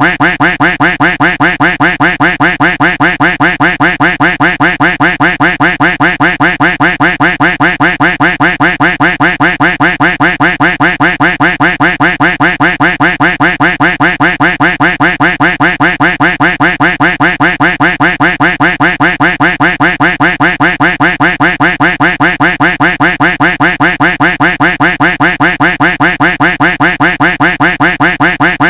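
A duck quack sound effect looped without a break, giving a fast, even string of quacks at about four a second.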